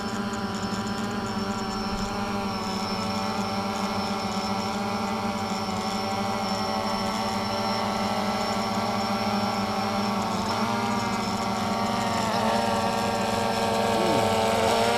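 DJI Phantom 3 Standard quadcopter hovering: its four motors and carbon fiber folding propellers make a steady buzzing hum of many tones, with the pitch wavering and shifting as it adjusts, growing louder near the end. The owner says these props set up a harmonic vibration that makes the drone hard to control.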